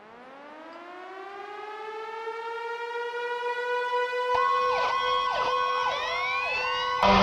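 Siren winding up from a low pitch to a steady high wail over about three seconds. About four seconds in a second siren joins, its pitch sweeping up and down over the steady one. Just before the end a louder, fuller sound cuts in suddenly.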